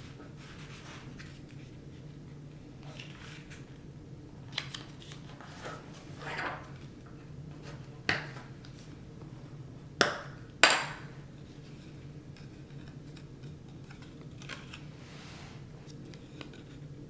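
Small items being handled and set down on a table-top during order packing: scattered light clicks and rustles over a steady low hum, with three sharp hard knocks about eight, ten and eleven seconds in.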